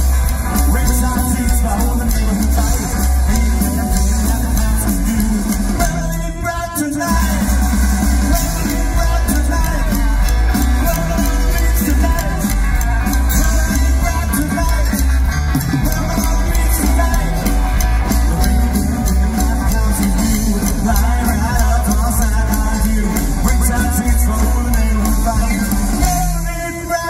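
Live rockabilly band playing: slapped upright bass, electric and acoustic guitar and drums, with a short break in the music about six seconds in.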